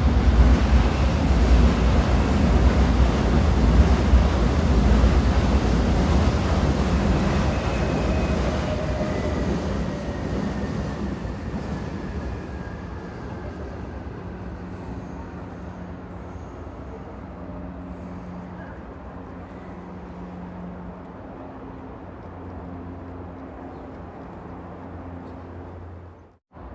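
Train running on rails. A loud rumble fades away over roughly the first half, with a faint falling whine, and settles into a quieter steady low hum. The sound cuts out abruptly just before the end.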